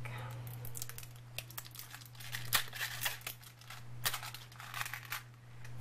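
Clear plastic wrapping crinkling and tearing as it is pulled off a small candy tin, an irregular run of sharp crackles.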